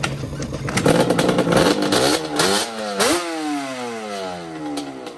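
Yamaha Banshee 421 two-stroke twin engine being revved: from idle it climbs hard about a second in, blips sharply near the three-second mark, then its revs fall away in a long smooth glide back toward idle.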